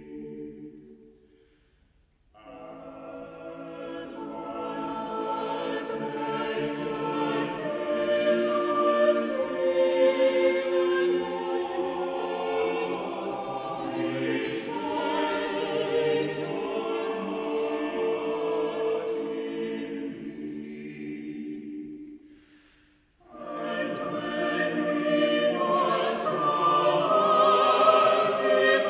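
Mixed-voice church choir singing. A phrase dies away at the start, and after a silent breath of about a second the choir sings a long passage, breaks briefly about two-thirds of the way through, then carries on.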